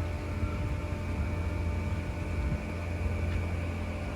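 Steady low mechanical hum with faint steady higher tones over a background of even noise.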